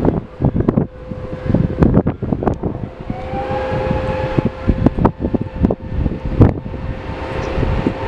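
Wind buffeting the microphone in repeated gusts, over the steady whine of a twin-engine jet airliner on final approach. A second, higher whine rises briefly about three seconds in.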